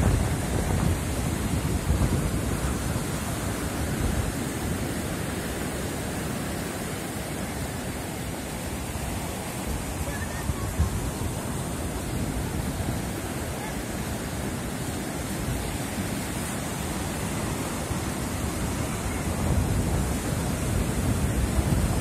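Baltic Sea surf: rough winter waves breaking and washing up the sand in a continuous wash, swelling louder near the end.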